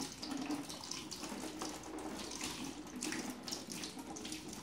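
Kitchen tap running into a metal sink, the stream splashing unevenly over hands rinsing sausages under it.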